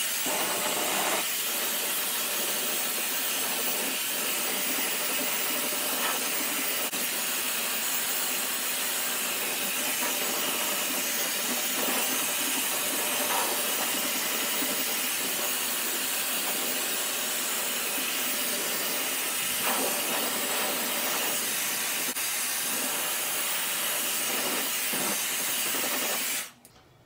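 Dyson hair dryer running, a really loud, steady rush of air as it dries wet hair; it cuts off shortly before the end.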